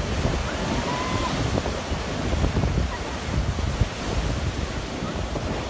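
Rough sea: waves breaking and surging up a pebble beach, with wind buffeting the microphone.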